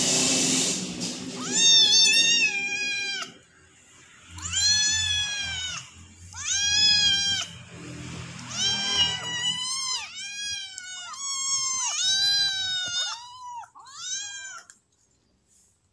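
Bottle-fed kittens meowing, impatient for their milk bottle: a string of about nine long, high-pitched cries, each rising and falling in pitch, that stops shortly before the end. A brief rustle comes before the first cry.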